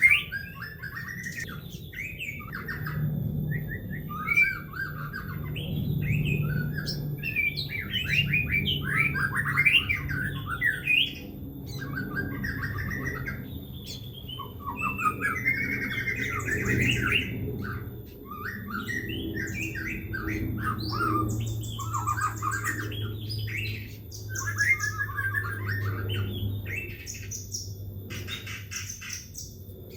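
White-rumped shama (murai batu) singing vigorously: a long, nearly continuous run of rapid, varied phrases separated by short pauses, over a steady low hum.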